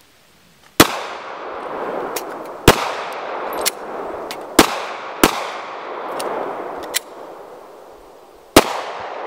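Glock 43 9mm pistols firing slow, irregular single shots, about nine in all, some much louder than others. Each shot is followed by a long echo that dies away over about a second.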